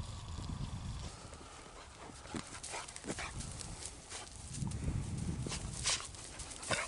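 German wirehaired pointer puppy scrambling and rooting about in a heap of dry cut grass, with scattered rustles and crackles under a low rumble.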